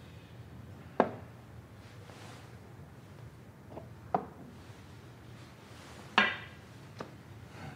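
Chess pieces set down on a wooden chessboard: about five sharp clacks spread out, the loudest about a second in and about six seconds in.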